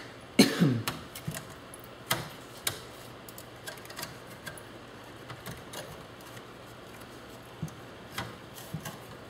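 Scattered clicks and knocks of plastic and metal parts being handled and pried at while an old typewriter is dismantled for scrap, with the loudest knock about half a second in. A low steady hum runs underneath.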